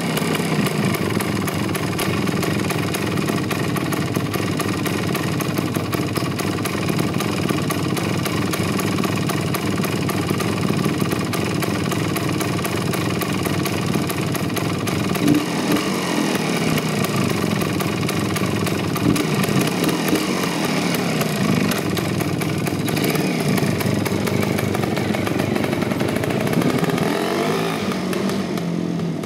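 Kawasaki dual-sport motorcycle engine running after a warm start, idling with the engine speed rising and falling under the throttle, then pulling away near the end.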